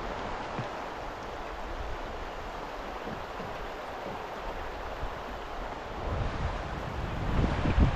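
Steady rush of river water. Wind buffets the microphone in low gusts near the end.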